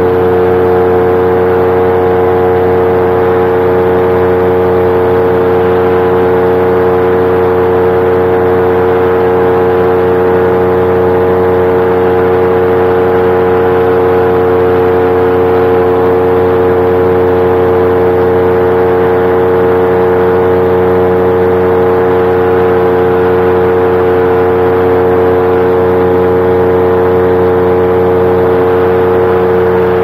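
Paramotor engine and propeller running steadily at constant cruise throttle: one unchanging buzzing pitch with no rise or fall.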